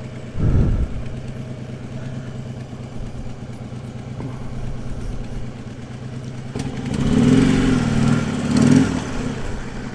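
Harley-Davidson V-twin motorcycle engine running at road speed, picked up by a lavalier mic inside the rider's helmet. About seven seconds in the engine note gets louder and rises and falls for a couple of seconds.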